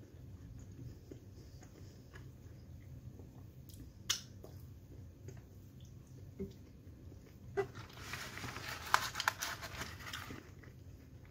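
Close-miked chewing of bourekas pastry, with small mouth clicks and one sharp click about four seconds in. About eight seconds in, a couple of seconds of dense crackling and rustling as hands break into flaky bourekas in a paper-lined foil tray.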